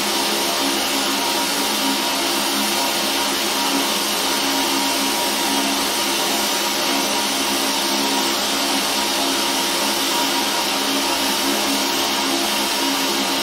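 Fiber laser engraver running as it etches a sledgehammer head: a steady machine whir and hiss with a constant hum, unchanging throughout.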